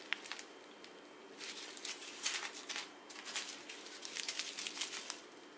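Small plastic zip-lock bags of square diamond-painting drills being handled and set down. There are a few clicks at first, then two spells of crinkling plastic and tiny drills shifting and rattling inside the bags.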